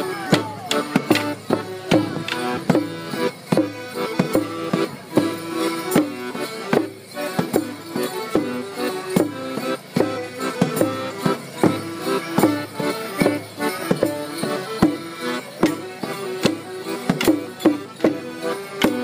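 A folk dance tune played on held-note instruments, with frequent sharp wooden clacks of morris dancers' sticks striking together.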